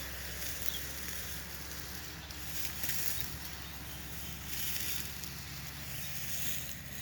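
Wind on the microphone outdoors: a steady low rumble with a hiss that rises and falls in gusts.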